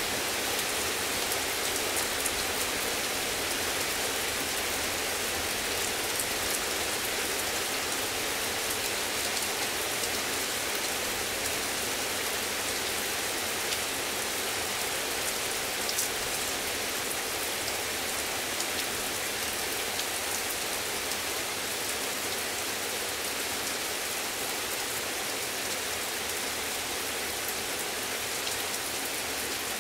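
Heavy rain falling steadily in a dense, even hiss, with scattered ticks of drops striking nearby surfaces.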